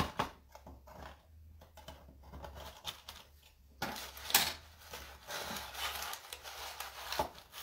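Hands handling a freshly baked round loaf in its metal pan on a kitchen counter: a few light clicks and knocks, then from about four seconds in a longer stretch of scraping and brushing.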